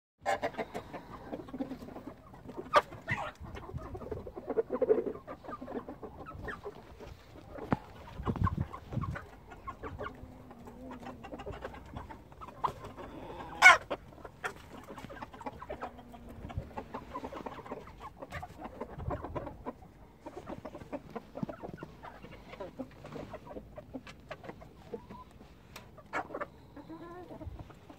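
Flock of chickens clucking and calling while they feed, many short calls scattered throughout, with one loud, sharp sound about halfway through.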